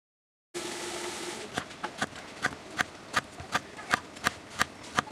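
Chef's knife slicing a ripe nendran banana into rounds on a wooden cutting board: a steady run of sharp knife taps on the board, about three a second, starting about a second and a half in.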